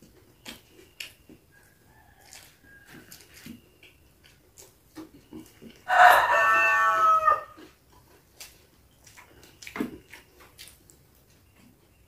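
A rooster crows once about six seconds in, a call lasting about a second and a half. It is the loudest sound, with faint scattered clicks and taps from eating by hand around it.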